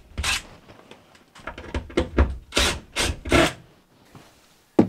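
Cordless drill/driver backing screws out of plywood in a series of short trigger bursts, the screws rasping against the wood as they turn out.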